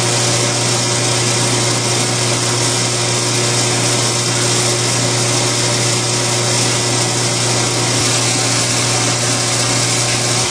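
Forge fire and its air blower running steadily: a constant rushing noise over a low hum, with steel held in the fire. The sound cuts off abruptly at the very end.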